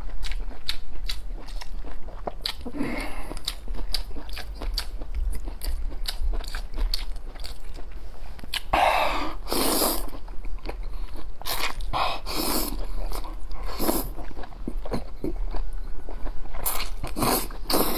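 Close-up mouth sounds of chewing crunchy tripe (maodu): a rapid run of crisp crunches and wet chewing. Several louder, longer slurping sucks come about halfway through and again near the end, as strips are drawn into the mouth.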